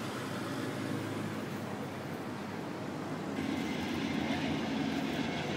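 Steady vehicle rumble with a low hum, whose sound changes abruptly about three and a half seconds in.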